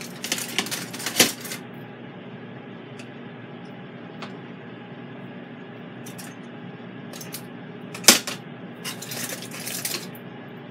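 Metal rotisserie spit and forks clinking and rattling as the pork tenderloin is pushed off them onto aluminium foil, with a sharp clack about eight seconds in and rustling handling of the foil around it.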